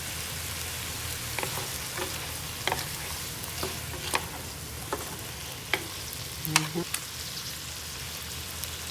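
Chicken with garlic and onion sizzling steadily in a frying pan, just after soy sauce and oyster sauce have gone in. A cooking utensil knocks and scrapes against the pan at irregular moments as the food is stirred, with the loudest knock about six and a half seconds in.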